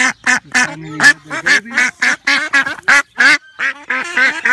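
White domestic duck quacking loudly in a rapid run of short quacks, about four a second.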